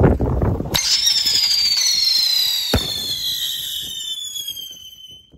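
Ground spinner firework whistling: about a second in, a high whistle starts and glides slowly down in pitch, fading near the end. About two seconds after the whistle starts there is a single sharp bang.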